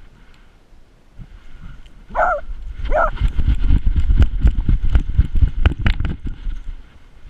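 A beagle running flat out with a GoPro strapped to her: fast thumps of her strides jolting the camera, which grow loud about two seconds in. Two short barks come about a second apart as the running picks up.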